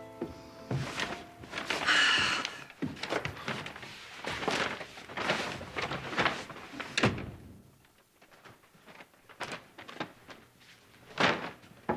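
A room door opening and thudding shut, with footsteps on a hard floor and paper shopping bags rustling. There is a run of short knocks and rustles, a sharp thud about seven seconds in, then a few light clicks.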